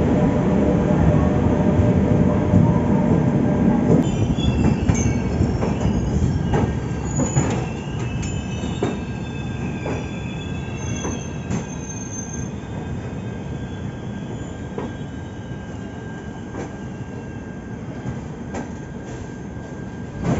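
Humsafar Express passenger train rolling slowly into a station and braking. Its wheels and brakes squeal in wavering high tones over scattered clicks on the rails, and the rumble fades as the train comes toward a halt.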